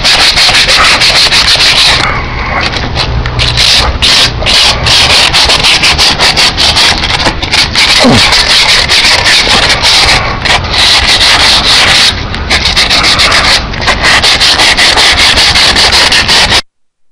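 Loud, rapid rubbing and scraping very close to the microphone, a sanding-like scratch of many quick strokes. It cuts off suddenly near the end.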